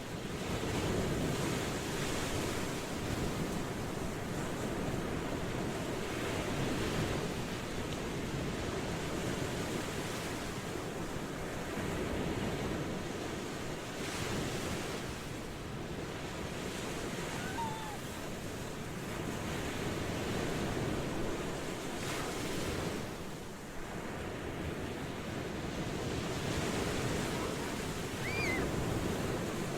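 Ocean surf washing onto a shore: a steady rush of waves that swells and eases every few seconds.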